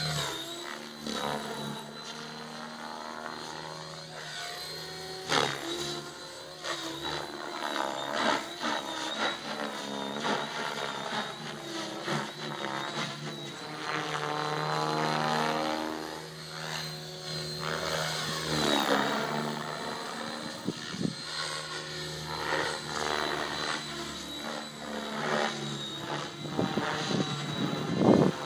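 Mikado Logo 600 electric RC helicopter in flight: rotor blades and electric motor whining and whooshing, the pitch rising and falling over and over as it manoeuvres. A few brief knocks come through, the loudest about five seconds in.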